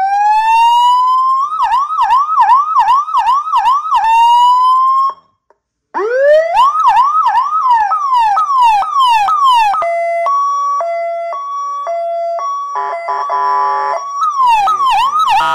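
A 100-watt amplified electronic siren (hooter) runs through its tones. It gives a slow wail, then a fast yelp. Briefly, about five seconds in, it cuts off. It restarts on the yelp, steps between a high and a low note, gives a buzzing horn tone, and goes back to the yelp near the end.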